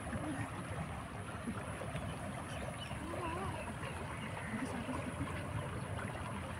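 Steady rush of a shallow river, with small splashes as hands work a cloth fishing net in the water.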